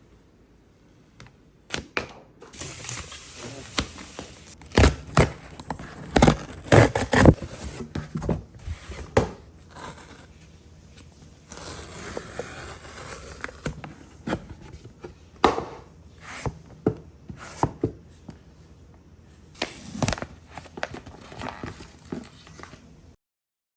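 Packaging being opened by hand: wrapping and paper tearing and crinkling, with scattered knocks and scrapes as boxed computer parts are handled. It stops abruptly near the end.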